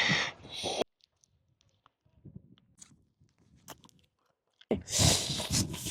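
Loud, crunchy open-mouthed chewing: a burst at the start, a few seconds of near quiet with faint clicks, then loud crunching again near the end.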